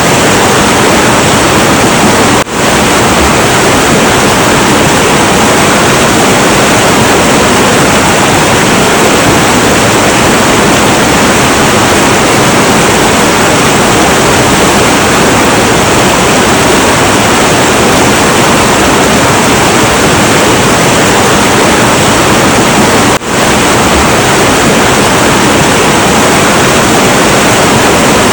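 Heavy, turbulent river water rushing in a loud, steady roar. The level dips for a split second twice, once a couple of seconds in and again about five seconds before the end.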